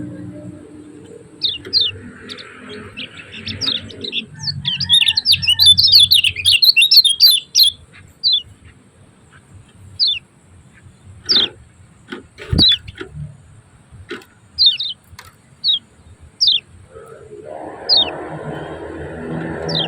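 Kecial kuning (a yellow white-eye) giving sharp 'ciak ciak' chirps. About five seconds in comes a dense burst of fast chattering, the loudest part; after it, single quick falling chirps come about once a second. A low hum sits underneath at the start, and a rougher noisy sound comes in near the end.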